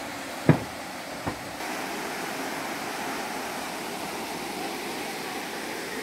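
Steady rushing of a waterfall, growing a little louder about a second and a half in. Two footsteps thump on the steps in the first second and a half.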